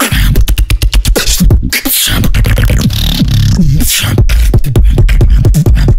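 Solo beatbox performance into a microphone: a rapid run of drum-like clicks and snares over a deep, heavy bass made with the mouth and throat.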